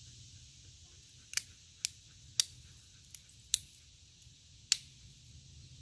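Spring-loaded scissors of a Victorinox Huntsman Swiss Army knife being worked open and shut: a string of sharp clicks, five loud and one faint, starting about a second in and irregularly spaced.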